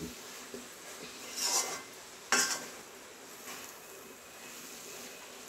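A spoon stirring and scraping in a pan of sautéing spice paste over a low sizzle, with a few scraping strokes, the sharpest about two and a half seconds in.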